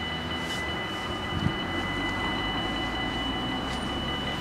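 Dutch AHOB level-crossing warning bells ringing steadily as a continuous high tone while the barriers are down, with one short knock about one and a half seconds in.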